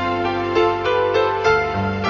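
Background music led by piano, notes struck several times a second over held low chords.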